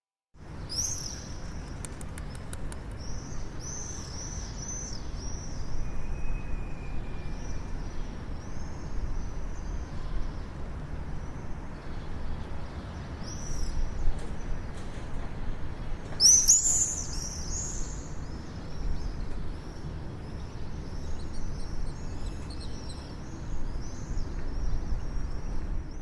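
Small birds chirping in quick series of short, high, arched notes, with a louder cluster of calls about sixteen seconds in, over a steady low rumble. The sound cuts in suddenly after a moment of silence.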